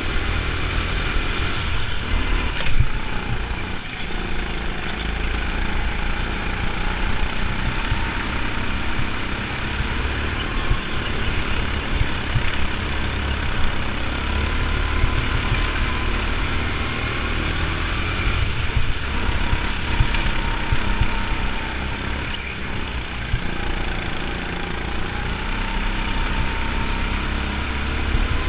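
Go-kart running flat out on board, heard from the kart itself: a steady heavy rumble with a thin whine that rises and falls with speed through the corners.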